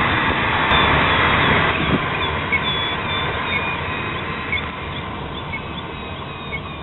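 Steady rush of airflow over a glider's canopy and fuselage, heard inside the cockpit, easing off somewhat over the last couple of seconds. A few short, faint high tones sound over it in the middle.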